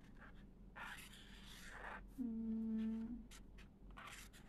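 A young woman humming one steady, closed-mouth "mm" for about a second while she thinks, with a brief soft hiss just before it.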